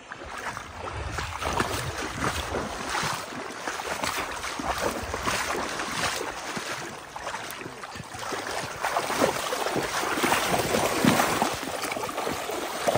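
Splashing in shallow river water, with repeated irregular splashes and sloshing as someone wades through the shallows. Near the end a hooked salmon thrashes at the surface.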